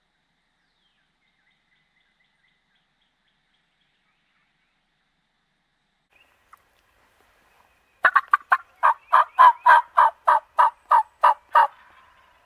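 Turkey yelping: a run of about fourteen loud, evenly spaced notes, about four a second, starting about eight seconds in and lasting about three and a half seconds.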